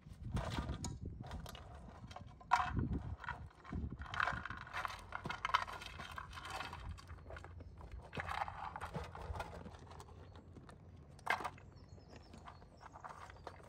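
Farm animals moving about: irregular knocks, clicks and rustling, with a sharp knock near the end.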